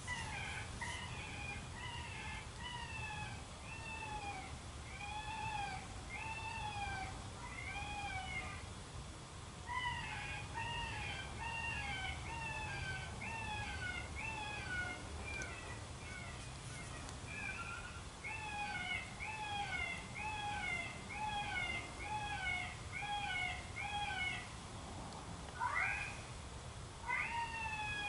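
Primos Dogg Catcher electronic predator call playing a prey-distress recording: a long series of high cries, each rising and falling in pitch, about one or two a second. It breaks off briefly twice, and there is a single rising cry near the end.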